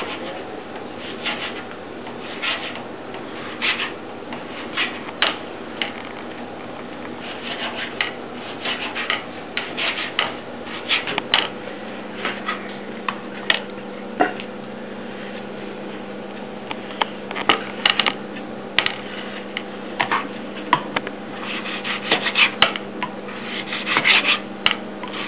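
Kitchen knife dicing sheep's tail fat on a plastic cutting board: short cuts and scrapes, the blade knocking on the board in uneven runs of quick strokes.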